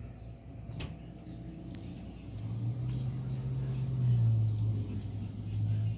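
Low rolling thunder that starts about two seconds in and grows louder, following a lightning flash.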